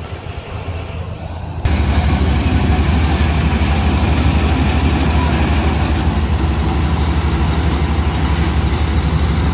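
Combine harvester running close by: a heavy diesel engine hum with a dense clatter of machinery over it. The noise jumps suddenly much louder about one and a half seconds in and stays steady after that.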